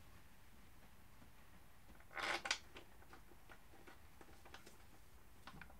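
Steel wheelie-bar side bracket and its loose bolts being handled and shifted against a motorcycle's seat subframe to line the bolt holes up: one short clatter about two seconds in, then a few light clicks.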